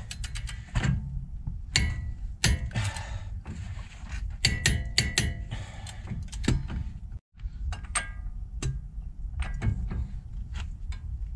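Ratcheting clicks in short quick runs from a torque wrench on its socket, tightening a freshly installed front axle nut on the hub, with metallic clinks and knocks of the socket and tools.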